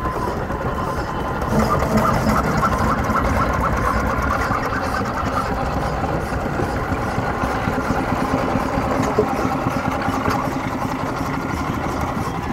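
Miniature steam traction engines running steadily as they drive past one after another.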